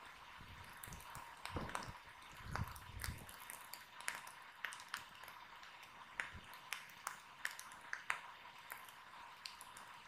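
Wood fire crackling faintly, with irregular sharp pops and snaps, and two low dull thumps in the first three seconds.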